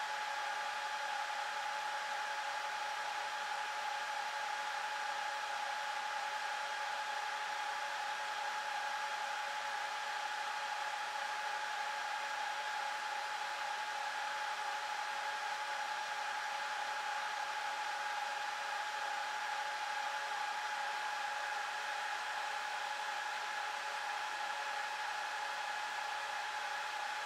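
Dell PowerEdge 2650 server's cooling fans running steadily, a constant whir with a high steady whine, as the server boots.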